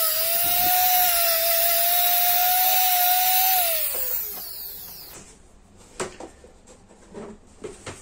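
Small handheld rotary tool with a wire-brush head running at a steady high whine as it scrubs rust off a steel hammer head. It is switched off about three and a half seconds in, and its pitch falls as it spins down. A few light taps and knocks follow as the hammer head is handled.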